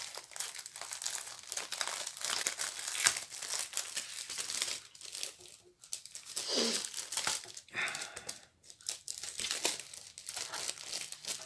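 Clear plastic bag crinkling and rustling in the hands as it is worked open, in irregular bursts of crackles with a few short pauses.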